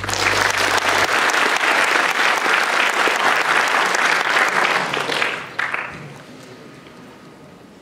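Conference audience applauding at the end of a talk: loud, dense clapping that starts at once, holds for about five seconds, then dies away quickly.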